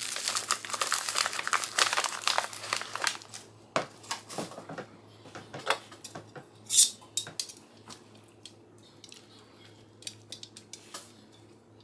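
Mylar freeze-dryer pouch crinkling as it is folded up, for about the first three seconds. Then scattered clicks and clinks of stainless metal tongs, with one sharp clink a little before seven seconds, and lighter taps of the tongs against a glass bowl near the end.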